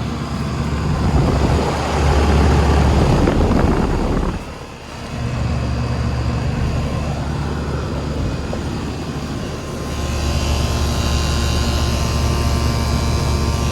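2003 Rheem Classic 2.5-ton central air-conditioner condenser running: a steady compressor hum under the rush of its outdoor fan. The sound swells for a few seconds about a second in, dips briefly near four and a half seconds, and swells again past ten seconds.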